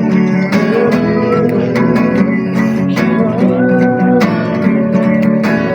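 Live worship music led by guitar, with voices chanting along.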